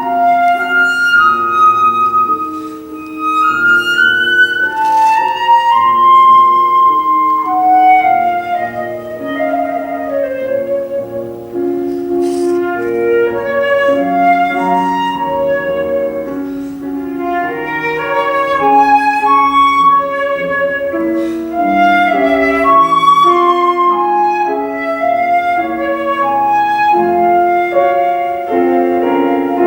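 Solo flute playing a classical piece, a flowing melody of held and moving notes, with piano accompaniment underneath.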